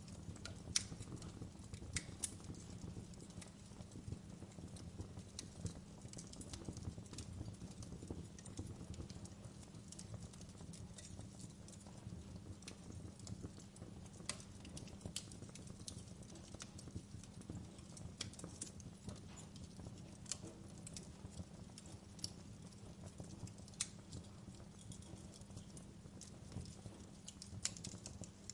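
Fire crackling in a fireplace: a low steady rumble with irregular sharp pops and snaps, a few of them louder.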